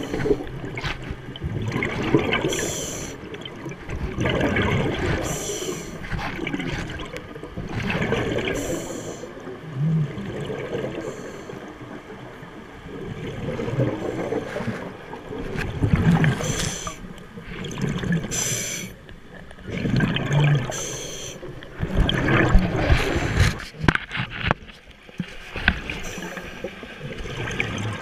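Muffled water sloshing and bubbling around a submerged camera, swelling in surges every two to three seconds, several with a short high hiss.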